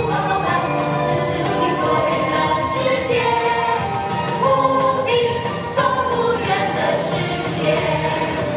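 A group of voices singing a cheerful children's song together over a live band, with a steady beat, recorded at a live stage show.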